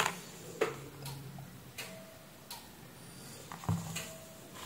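Handling noise from a plastic squeeze bottle and cotton swab: about six light, irregular clicks and taps, the sharpest at the very start and a duller knock near the end.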